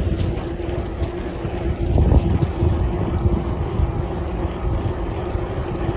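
Bicycle riding along a tarmac road: wind rushing over the handlebar-mounted microphone and tyre rumble, with a steady hum and light rattling clicks. A louder rumble swells briefly about two seconds in.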